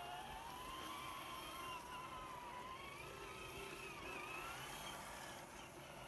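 Electric motor whine of a Traxxas TRX-4 RC crawler, its pitch rising and falling slowly with the throttle as it drives.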